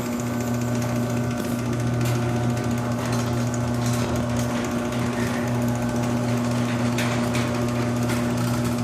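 Chain-drive garage door opener running on newly replaced drive gears: the motor hums steadily as it drives the chain, with a sharp click about seven seconds in.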